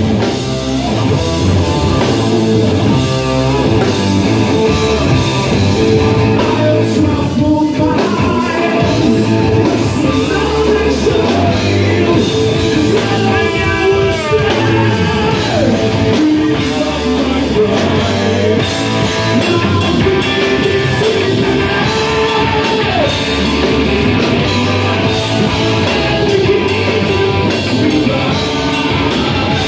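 Live rock band playing: a singer's vocals over electric guitar, electric bass and drum kit.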